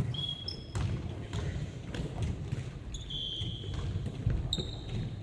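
Ball bouncing on a court, a thud roughly every half second to a second, with athletic shoes giving short high squeaks on the floor, the longest about three seconds in.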